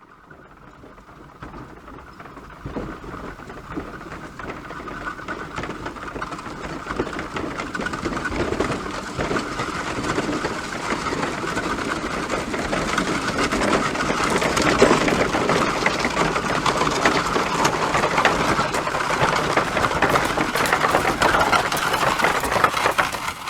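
Horse hooves clattering in a fast, dense beat, growing louder over the first dozen seconds and then holding steady.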